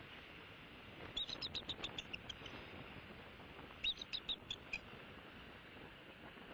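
A bird calling in two quick runs of short, high chirps, about seven notes a second, the first starting about a second in and the second near four seconds.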